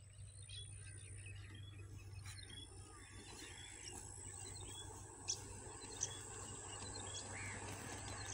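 A small bird chirping over and over, a short call about twice a second, above a faint steady low hum. Two sharp ticks come about five and six seconds in.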